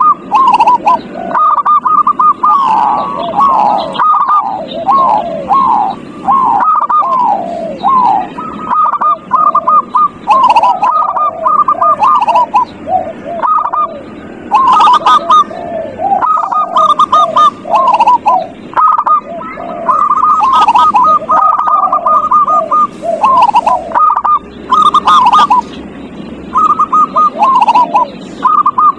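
Zebra doves (perkutut) cooing: continuous rapid strings of short staccato coos, one phrase running into the next and some overlapping.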